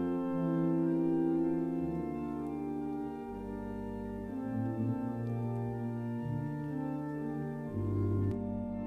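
Organ music: slow, sustained chords over a bass line that steps to a new note every second or so.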